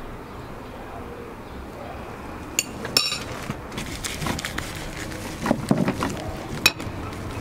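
Hands kneading raw minced meat with spices on a steel tray: wet slapping and squishing. There are sharp metallic clinks, one ringing briefly, about three seconds in.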